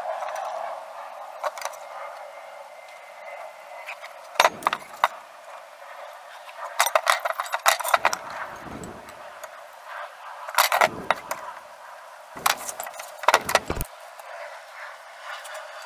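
Pieces of steel angle and square tubing clinking and clanking as they are handled and set down, in several short bursts of metal-on-metal knocks.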